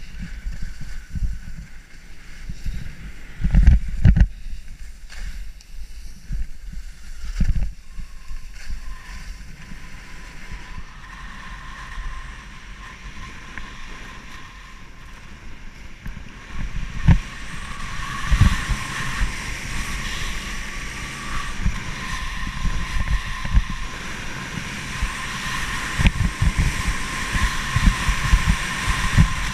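Wind buffeting the microphone of a head-mounted action camera at skiing speed, with skis scraping and chattering over hard-packed, chopped-up piste snow. The rumble comes in gusts with irregular thumps, and the hiss thickens from about eight seconds in.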